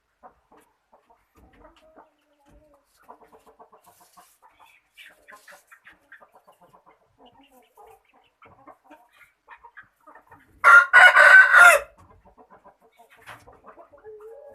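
Chickens clucking softly, then one loud chicken call about a second long, near the end.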